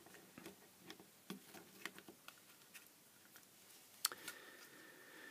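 Faint, scattered light clicks and taps from handling a small plastic night light's case and its loose circuit board as the board is lifted out, with one sharper click about four seconds in. A faint steady high tone follows that click.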